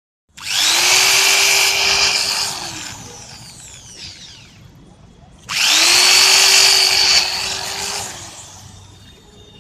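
Handheld electric drill boring rivet holes through a metal bracket into an aluminium composite panel, run twice for about two seconds each. It spins up to a steady whine and winds down with a falling pitch after each hole. The first run starts about half a second in, the second about five and a half seconds in.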